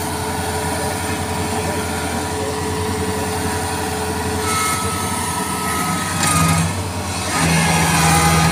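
Kubota DC-70 combine harvester's diesel engine running while its rubber tracks work through deep, bogging mud. A thin high whine joins about halfway through, and the engine note grows heavier and louder about six seconds in and again near the end, as it labours under load.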